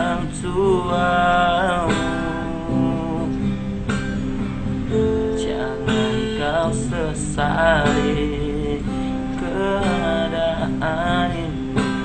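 A man singing in Indonesian over a strummed acoustic guitar accompaniment, his sung phrases rising and falling and breaking every second or so.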